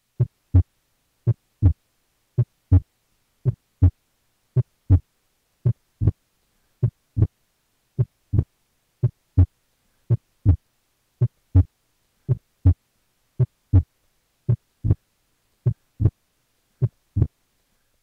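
Heart sounds at the left upper sternal border: a steady lub-dub, just under one beat a second, with S2 significantly louder than normal. On inspiration S2 splits and its second, pulmonic component is the louder of the two. This loud P2 is not normal and is the sign of pulmonary hypertension.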